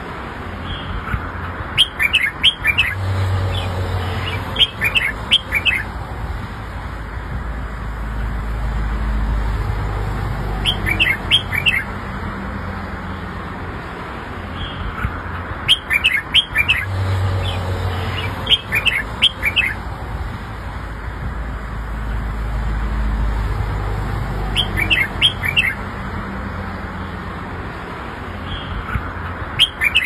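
Caged red-whiskered bulbul singing short phrases of quick, bright chirping notes, a new phrase every few seconds, over a low steady background rumble.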